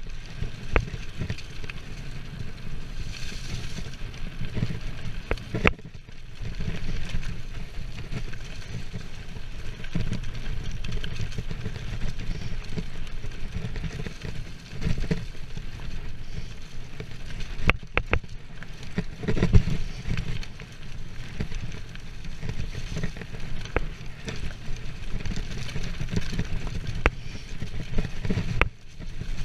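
Mountain bike descending a dirt forest trail at speed: a steady low rumble of tyres and wind on the microphone, broken by sharp knocks and rattles from the bike over bumps, with a loud cluster of them about two-thirds of the way through.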